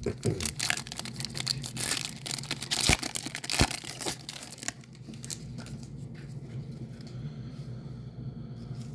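A trading-card pack's foil wrapper being torn open and crinkled, with cards handled: a run of crisp rustles and sharp clicks for the first five seconds or so, then only faint handling.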